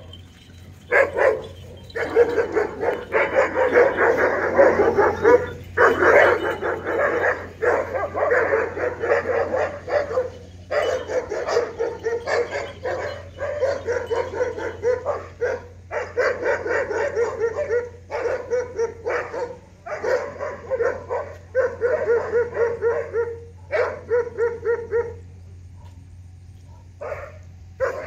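A dog barking at an ox in fast, nearly unbroken runs of barks with short pauses, going quiet for a couple of seconds near the end before a few last barks.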